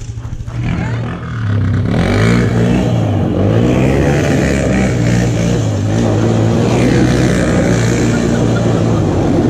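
A four-wheeler's (ATV's) engine revving up and down, its pitch wavering, as it spins doughnuts on gravel, with the tyres scrabbling on the loose stones.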